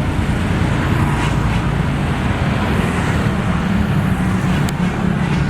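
Tour bus running: a steady, loud engine and road rumble with no horn sounding.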